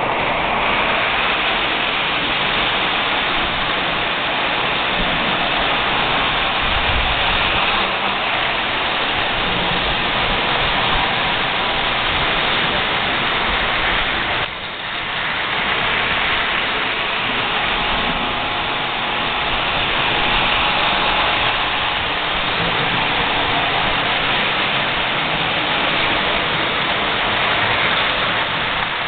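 Model trains running on metal track: a steady rushing rattle of wheels and motors that dips briefly about halfway through.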